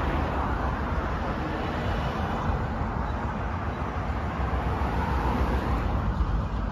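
Steady outdoor rumble of road traffic and wind buffeting the microphone.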